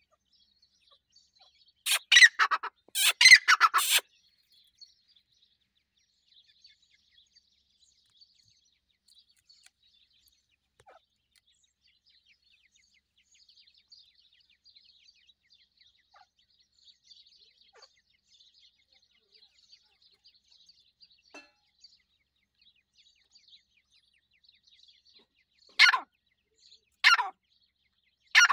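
Francolin chicks peeping: faint, thin, high cheeps scattered throughout. A few loud, harsh bursts break in, a cluster about two seconds in and more near the end.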